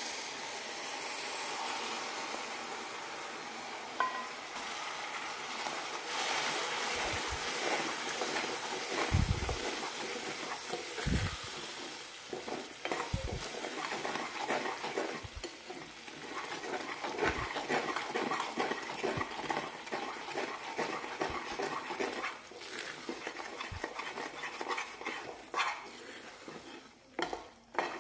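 Sugar syrup poured into gram flour roasted in ghee sizzles in a stainless steel pan. A wooden spatula then stirs and scrapes the thickening mixture around the pan, with a few low knocks of the spatula against the pan.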